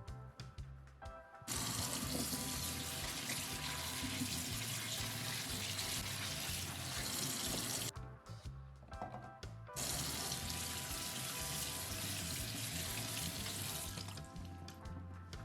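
Water from a kitchen tap running into a sink, starting about a second and a half in, stopping for about two seconds midway, then running again and fading near the end, over background music.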